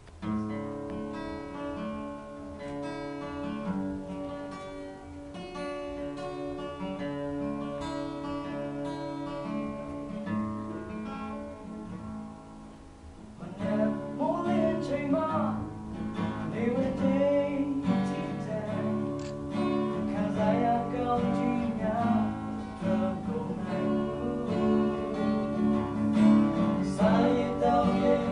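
Acoustic guitar playing alone, then a man's voice comes in about halfway through, singing a Burmese song over the guitar.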